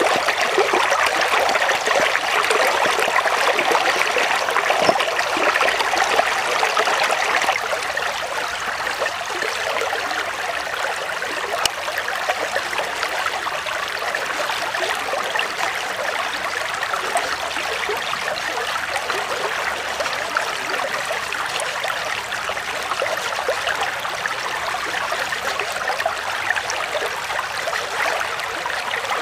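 A shallow stream running steadily over rocks, louder for the first seven seconds or so and then a little softer.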